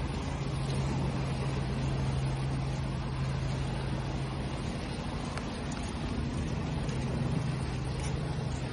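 Ocean waves washing with a steady hiss, under a constant low motor hum that gains a faint higher tone about halfway through.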